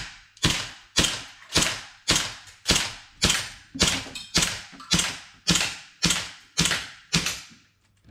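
Air pistol fired in rapid succession, about fourteen sharp shots at roughly two a second, each shot echoing briefly off the concrete-block walls of an indoor range.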